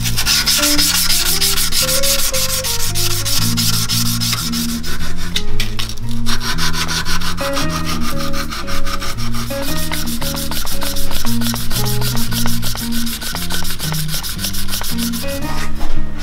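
Strip of abrasive paper pulled back and forth around a wooden knife handle clamped in a vise: hand-sanding the handle smooth in quick rasping strokes, with a brief pause about five and a half seconds in. Guitar music plays underneath.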